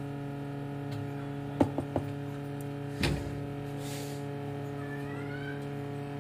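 Steady electrical hum under a few light clicks about one and a half to two seconds in and a louder knock about three seconds in, followed by a brief hiss: a soldering iron tip tapping and working at a small capacitor on a phone logic board.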